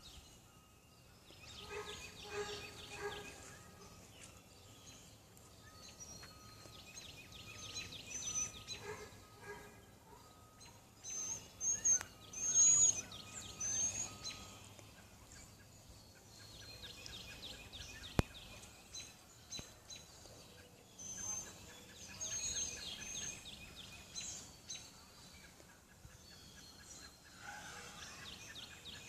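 Turkeys gobbling in repeated bouts a few seconds apart, mixed with high bird chirps.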